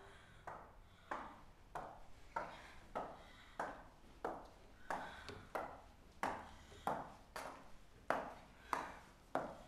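Slow, evenly paced footsteps of hard-heeled shoes on a hard floor, a sharp click about every two-thirds of a second.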